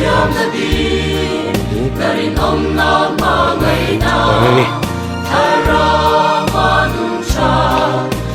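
Background music: voices singing a gospel-style song over bass and a steady beat.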